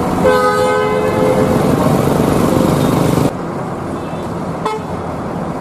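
A bus horn sounds a two-tone blast for about a second and a half over the steady rumble of bus engines and traffic. The background noise drops abruptly about three seconds in.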